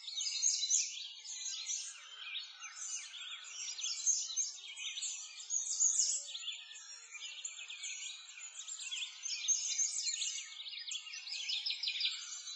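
A dense chorus of small birds chirping and twittering, many short high-pitched calls overlapping without a break.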